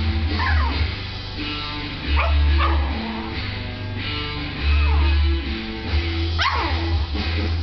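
Yorkshire terrier giving short, high yapping barks every second or two, each falling in pitch, over background guitar music. It is demand barking for attention, wanting to be picked up.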